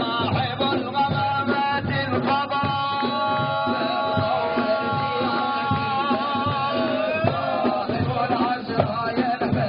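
Live Algerian folk music: a troupe of bendir frame drums and a large drum beating a dense, steady rhythm under a singer. A long held melodic note, wavering a little, carries through the middle.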